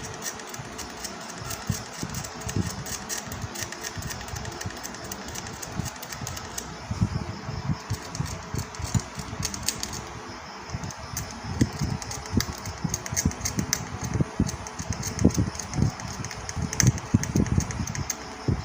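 Hand work on a TV circuit board: irregular knocks and short scratchy clicks over a steady whirring background.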